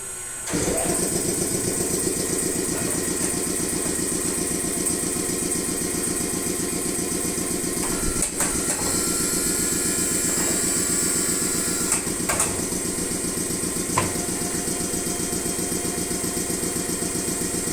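Motor of a large tire changer starting about half a second in and running steadily with a fast, even pulse, during a test run after repair. A few sharp clicks or knocks sound over it, around the middle and again later.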